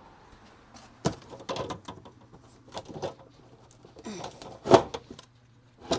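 A few irregular knocks and clatters of things being handled, the loudest about three-quarters of the way through.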